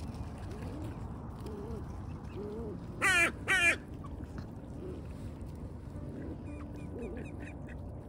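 Ducks quacking softly and steadily. About three seconds in come two loud calls, one right after the other, close to the microphone.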